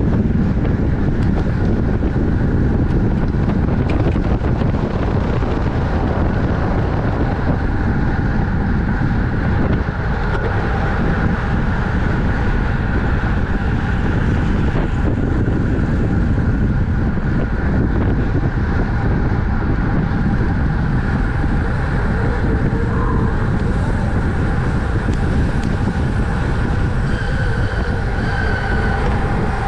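Steady wind buffeting on the microphone of a camera riding along on a racing bicycle at speed, with road and tyre noise underneath.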